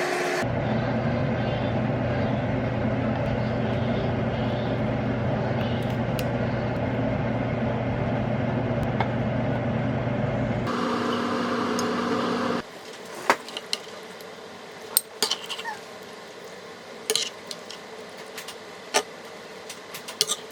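Steady humming, whirring kitchen machine noise that cuts off about 12 seconds in. It is followed by a quieter room with scattered sharp clinks and taps of dishes and utensils being handled.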